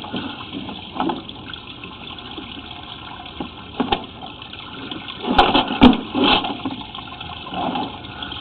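Water running and rushing, as in a drain line, with a few sharp knocks over it; the loudest knocks come twice about five and six seconds in.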